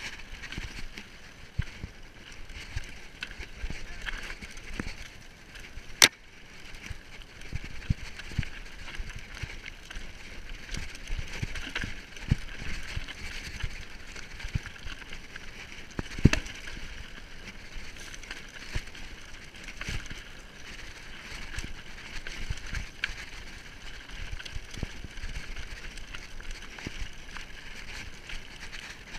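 Mountain bike riding down rocky singletrack: tyres crunching over loose stones and the bike rattling over bumps. Two sharp knocks stand out, about six and sixteen seconds in.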